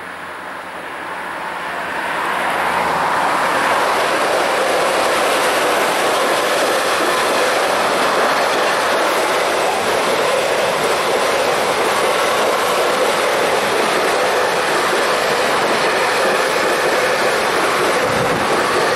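Container freight train passing close by at speed. The sound grows over the first two seconds as the locomotive arrives, then becomes a steady, loud rush of the wagons' wheels running on the rails.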